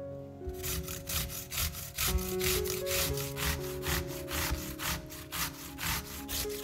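Zucchini being grated on a coarse stainless steel cone grater: quick, even rasping strokes, starting about half a second in.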